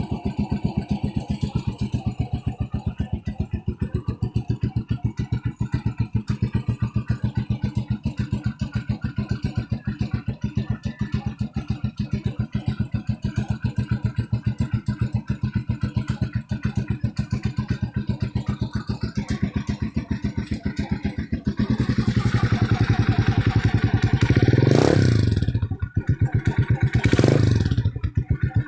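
Rusi TC150 motorcycle on its stock exhaust, idling with an even, steady beat. About twenty seconds in the engine gets louder, and near the end the throttle is blipped in quick revs that rise and fall.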